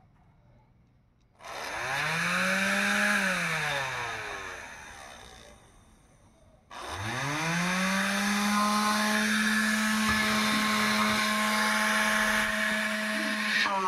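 Homemade jet fan, a small electric motor spinning a rotor inside a plastic pipe, whining up to speed with a rush of air about a second and a half in, then winding down to a stop. About seven seconds in it spins up again and keeps running at a steady pitch.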